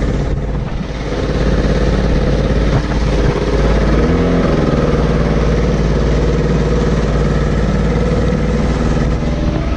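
Motorboat engine running under way, growing louder about a second in and shifting in pitch about four seconds in.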